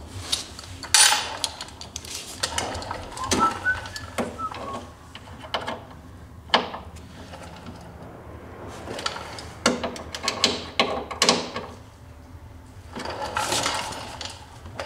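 Hand socket ratchet clicking in quick runs as bolts are run into the snowmobile's rear bumper, with a few metal clinks of a socket being changed near the start.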